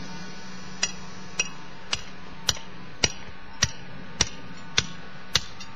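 Hammer blows on the wooden foundation forms: nine sharp, evenly spaced strikes, a little under two a second, over a steady low hum.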